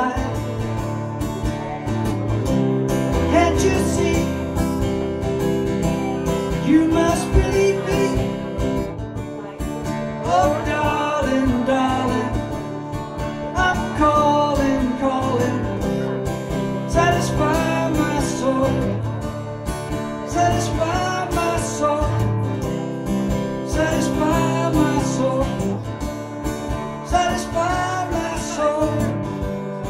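A man singing with his own acoustic guitar accompaniment, picked up live through a vocal microphone.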